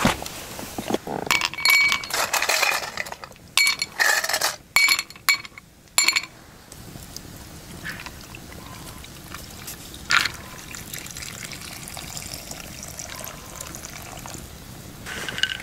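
Ice cubes clinking sharply into a glass tumbler for the first six seconds or so, then hot kuma shochu poured from a ceramic tokkuri in a steady stream over the ice, with one sharp tick about ten seconds in.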